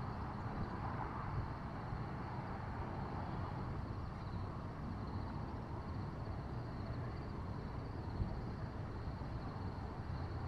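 Steady outdoor ambient noise picked up by the camera microphone, mostly a low rumble with no distinct events.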